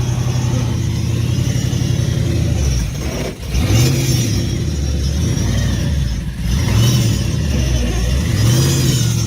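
Drag race car engine idling with a steady low rumble, blipped three times, about four, seven and eight and a half seconds in, each time rising in pitch and falling back to idle.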